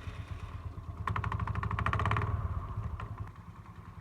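TVS Jupiter scooter's single-cylinder engine running with the CVT cover open, briefly revved about a second in with a fast clattering rattle, then dropping back to idle. The clatter is the engine sound problem being tracked down.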